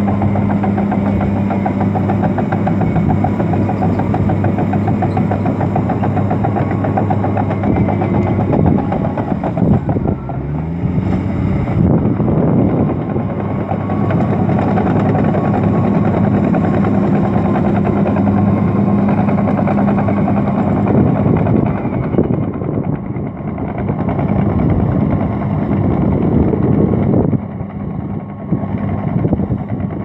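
Komatsu D65PX crawler dozer's diesel engine running loud and steady under load as it pushes earth, with the rapid clatter of its steel tracks. About ten seconds in, the engine pitch drops and climbs back, and the sound grows quieter in the last few seconds.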